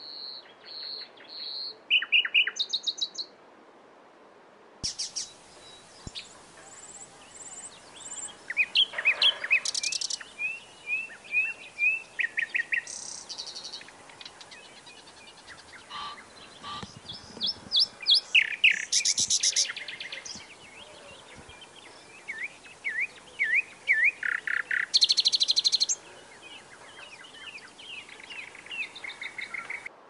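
Nightingale singing: a string of varied phrases with short pauses between them, mixing repeated piping notes, fast rattling trills and quick slurred whistles.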